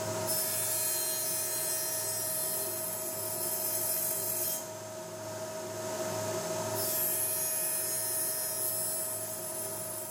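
Table saw running with its blade cutting a short block of wood, a steady motor hum under a loud cutting hiss. The cutting eases off for about two seconds in the middle while the blade spins freely, then the blade cuts again.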